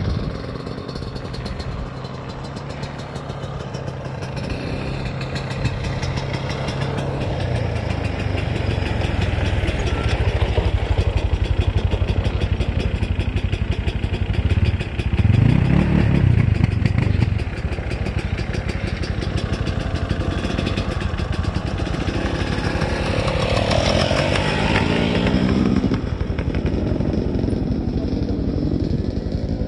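Motocross dirt bike engine running and revving, growing louder over the first ten seconds. About fifteen seconds in comes a loud rev that rises and falls, and a second, smaller swell comes near the end.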